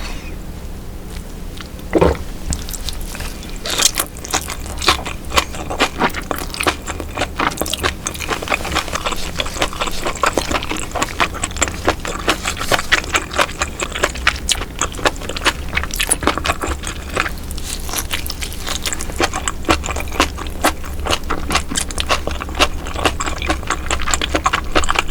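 Close-miked chewing of baby octopus: dense, irregular wet clicks and crackles, with a steady low hum underneath.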